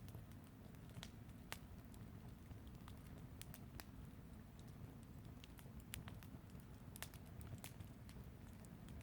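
Fire crackling faintly, with irregular sharp pops and snaps scattered through it over a low steady rumble.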